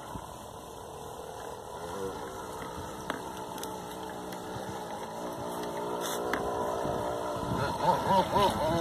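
Small motor of a radio-controlled model boat running with a steady whine that wavers up and down in pitch and grows louder near the end, over low rumbling.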